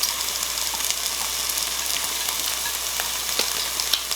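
Raw meat sizzling and frying on a hot tabletop Korean barbecue grill plate: a steady high hiss with many small pops and crackles of spitting fat.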